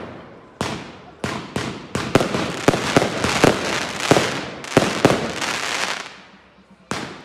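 Aerial fireworks shells bursting in a rapid series of sharp bangs, with crackling between them. After a short lull there is one more bang near the end.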